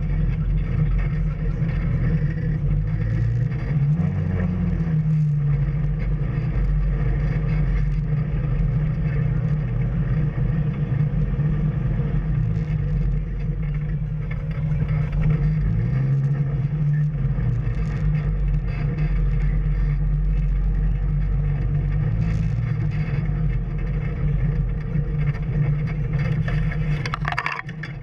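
An off-road vehicle's engine running steadily on a trail ride, its pitch rising and falling a few times with the throttle. Near the end comes a brief higher-pitched squeal.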